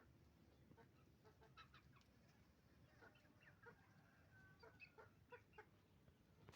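Hens clucking faintly in a flock: a scatter of short clucks, with one longer drawn-out call in the middle.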